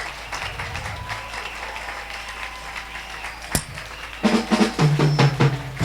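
Scattered clapping from a church congregation. About four seconds in, a band starts playing with drum hits and bass notes.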